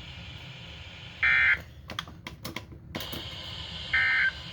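Emergency Alert System end-of-message data bursts from a weather radio: two short, shrill warbling digital tone bursts about two and a half seconds apart, marking the end of the severe thunderstorm warning. A run of sharp clicks falls between them.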